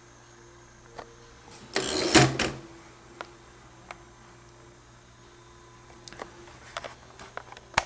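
Parts of a 1924 Underwood No. 3 typewriter being handled: one brief metallic rattle-and-slide about two seconds in, then a few light clicks near the end.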